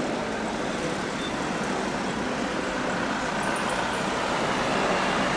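Steady jet engine noise from airliners on and over the airfield, growing slightly louder near the end.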